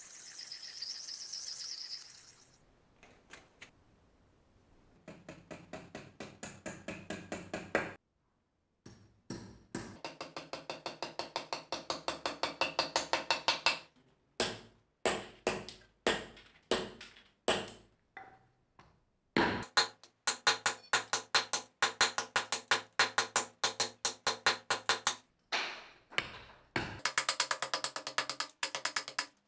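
A belt sander grinding the steel axe head for about two seconds. Then, after a quieter stretch, comes a long run of sharp, evenly spaced clicks, several a second, that stops dead a few times.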